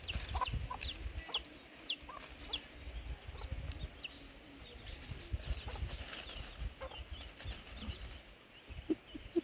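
Chicks peeping in quick, high notes that fall in pitch, with a hen's lower clucks among them; the peeping thins out after about four seconds. A low rumble runs underneath.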